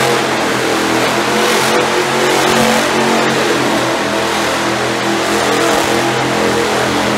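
Monster truck engines running loud and steady as a truck drives and turns across the arena floor, the engine note wavering slightly.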